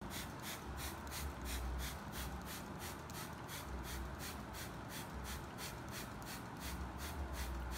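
Water sprayer hissing onto a car's paintwork in even pulses, about four a second, over a low hum that comes and goes.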